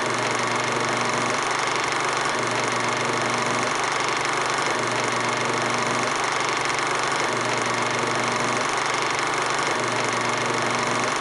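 Film projector running: a steady mechanical whirr with hiss, and a low hum that swells and fades about every two and a half seconds.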